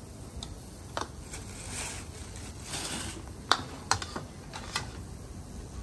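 Scattered sharp clinks and clicks of ceramic noodle bowls and a metal ladle against a stainless steel counter as bowls are filled, the loudest two about three and a half and four seconds in.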